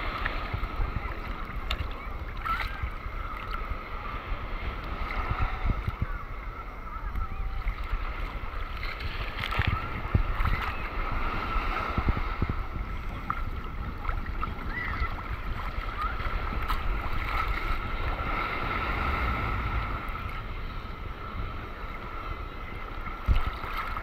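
Small sea waves sloshing and lapping against a camera held at the water's surface, with low wind buffeting on the microphone and occasional splashes.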